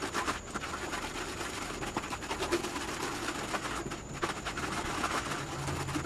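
A plaster of Paris, sand and water mix being stirred in a bucket: irregular scraping with many small knocks.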